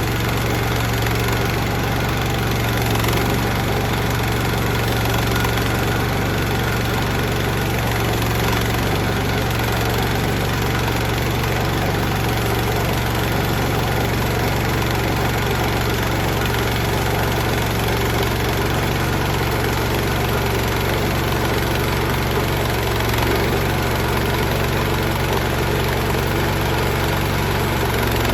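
Gas engine of a Woodland Mills portable band sawmill running steadily while the mill makes its first cut through a log.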